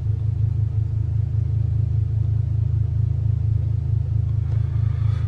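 Honda Civic Type R FK8's turbocharged four-cylinder idling, a low steady drone with a regular throb heard inside the cabin.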